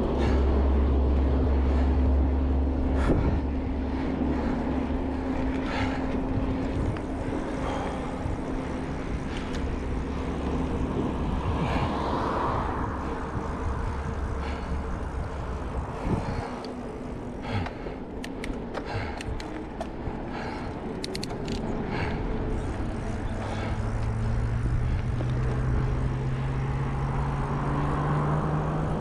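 Wind rushing over a bicycle-mounted action camera while riding beside road traffic, the buffeting heaviest in the first few seconds. A run of light clicks comes about two-thirds of the way through, and near the end a motor vehicle's engine hum rises in pitch as it approaches.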